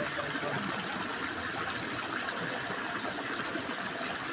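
Steady rushing of running water, even and unbroken.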